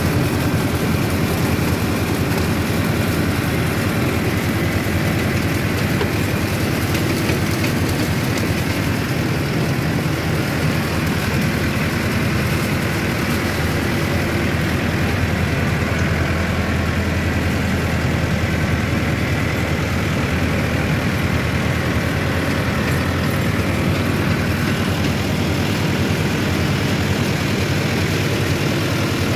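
Mahindra Arjun Novo 755 tractor's diesel engine running steadily, heard from the driver's seat.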